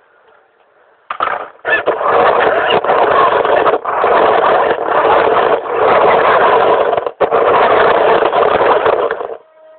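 Radio-controlled model Mercedes ML 320 driving in spurts: its small electric motor runs and its wheels roll on the ground. It starts about a second in, breaks off for an instant four times, and stops shortly before the end.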